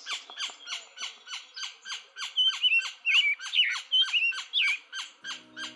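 Birds calling: a steady run of short, falling chirps at about four a second, with louder wavering calls from another bird over it in the middle. Music comes in near the end.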